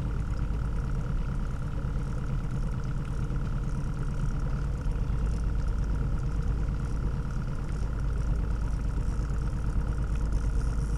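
Boat motor running steadily, a low even rumble with a constant high whine over it.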